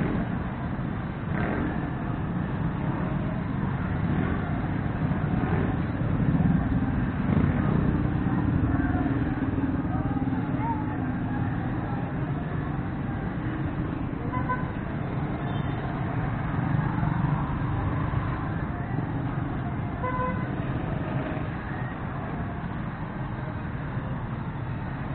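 Street traffic running steadily, with passing vehicles and distant voices. Twice, about halfway in and again a few seconds later, there is a short horn toot.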